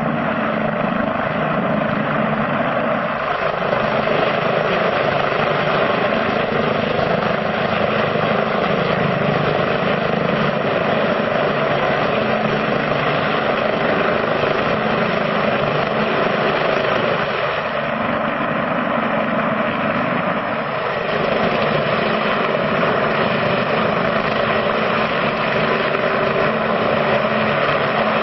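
Light helicopter hovering close by, its rotor and turbine making a steady, unbroken drone.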